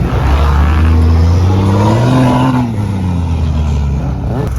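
Off-road vehicle engine revving under load: its pitch climbs for about two seconds, then falls away, with a short quick rev near the end.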